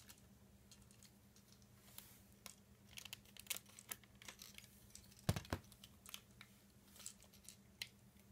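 Faint plastic clicks and rattles from a Happiness Charge Precure Triple Dance Honey Baton toy as its white plastic segments are pushed together and the baton is shortened, with one dull knock about five seconds in.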